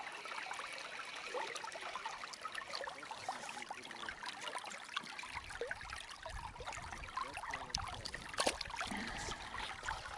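Running river water, a steady trickle dotted with many small ticks and splashes. About halfway through, a low rumble joins it.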